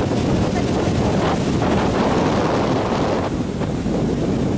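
Steady wind buffeting the microphone on a moving motorboat, over the boat's engine and water against the hull.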